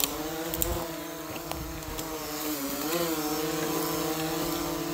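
Quadcopter drone's propellers and motors humming steadily, with the pitch dipping and rising once about three seconds in as the drone flies low between the trees.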